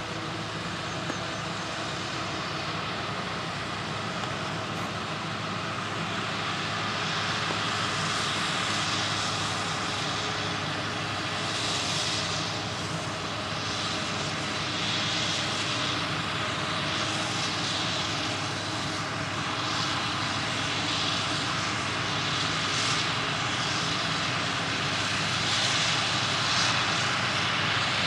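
Claas Jaguar 820 self-propelled forage harvester running under full load while chopping maize: a steady, heavy machine drone with a higher rushing hiss that swells and fades every second or two, growing slightly louder over time.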